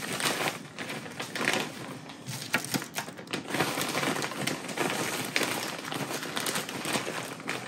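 Plastic bag crinkling and rustling in the hands, with many small irregular clicks and taps, as sugar-coated cinnamon roll pieces are taken out and set into a baking dish.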